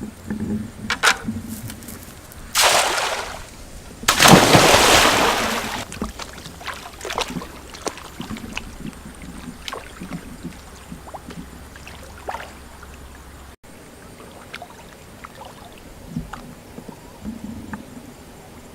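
Water splashing: two loud splashes, about two and a half and four seconds in, the second lasting a couple of seconds, then small sloshes and drips.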